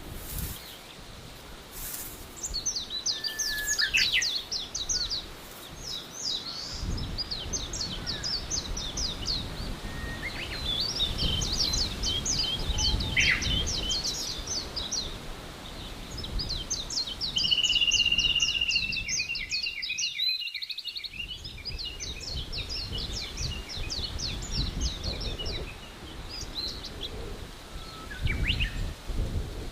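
Forest birds singing: repeated phrases of rapid, high, trilled notes, one after another, over a low steady background noise that cuts out briefly about two-thirds of the way through.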